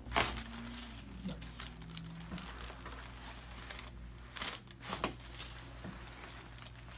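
Crinkling and rustling as a patient shifts on a chiropractic table, with a sharp crack just after the start and two more clicks about four and a half and five seconds in.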